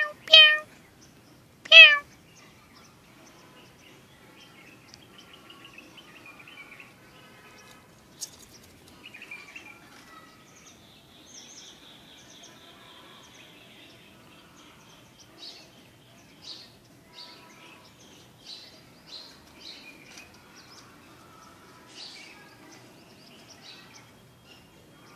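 A domestic cat meows loudly twice near the start, the calls about a second and a half apart. Small birds chirp and trill quietly in the background for the rest of the time.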